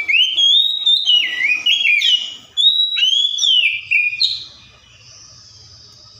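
Oriental magpie-robin singing: a run of loud, clear whistled phrases with notes sliding up and down, which stops about four and a half seconds in, leaving only a faint steady hiss.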